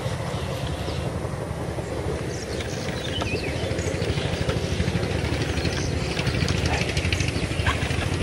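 An engine running steadily, a fast low throb.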